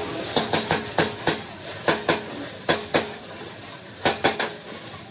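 Hand hammer striking the steel shell of an air-compressor tank near the seam with its dished end cap: about a dozen sharp metallic blows in irregular bursts, each with a short ring, the last ones about four seconds in.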